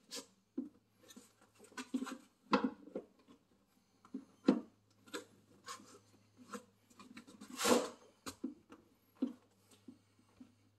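Scattered clicks, taps and knocks of car parts being handled and fitted by hand, with a longer scraping rub about two-thirds of the way through. A faint steady low hum runs underneath.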